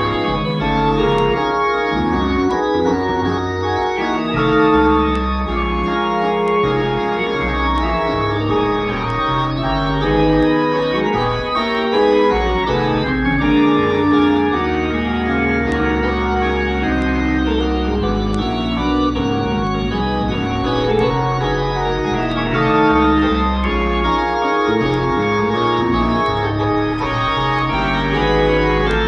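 Organ played with sustained chords over a steady bass, the chords changing every second or two.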